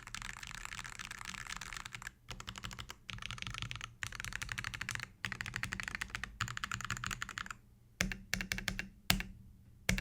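Mechanical keyboard fitted with AKKO tactile switches being typed on fast, in runs of rapid keystroke clicks broken by short pauses, with a few louder separate key strikes near the end.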